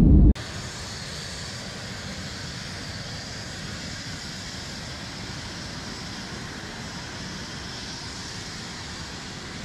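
A loud, low airliner-cabin rumble cuts off abruptly, giving way to a steady, much quieter hiss of outdoor background noise with a faint low rumble underneath.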